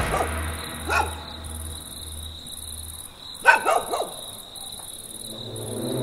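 Crickets chirring steadily in the night, with a dog barking once about a second in and again in a short run of barks a little past halfway.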